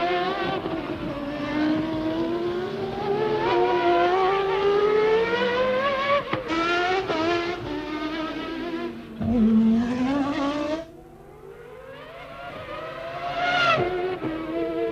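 1995 Formula One car engines at racing speed, the pitch climbing through each gear and dropping sharply at each shift. The sound falls away a little past halfway, then another rising engine note builds near the end.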